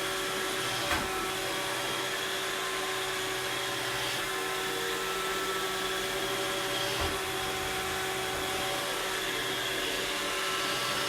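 Robot vacuum cleaner running with a steady motor whine, with two light knocks, one about a second in and one about seven seconds in.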